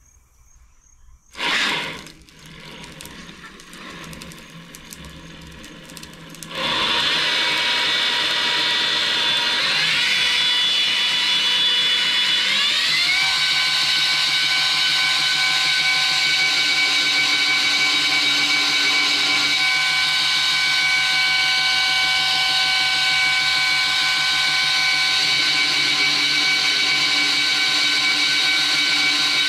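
A short loud clunk, then a belt grinder's motor starts about six and a half seconds in and runs steadily. Its pitch steps up twice as the speed is raised.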